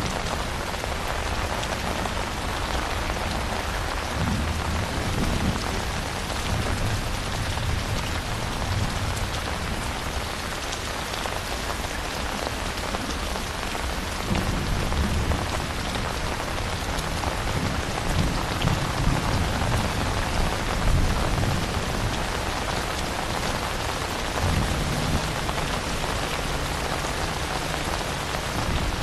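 Steady rain falling, with low rumbles of distant thunder swelling and fading several times.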